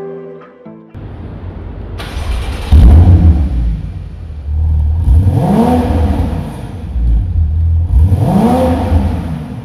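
Porsche 981 Cayman's flat-six engine, fitted with an Armytrix valvetronic exhaust, idling and being blipped in free revs three times, each rev rising and falling back to idle. The first rev, about three seconds in, is the loudest.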